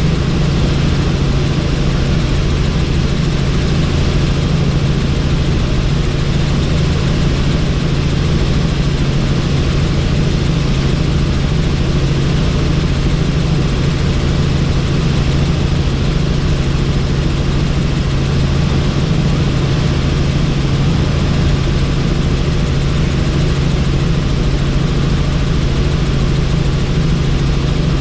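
Helicopter in flight heard from on board: a loud, steady drone with a strong low hum and an even rushing noise over it.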